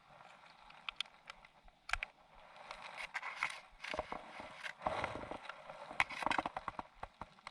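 Scattered clicks, taps and rustling from a sabiki fishing rig and tackle being handled while it is set up. The clicks come thickest between about three and six and a half seconds in.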